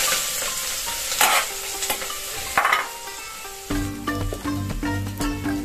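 Chopped onion sizzling in hot oil in an aluminium pot on a gas stove, stirred with a metal spoon. Background music runs underneath and grows louder about two-thirds of the way in.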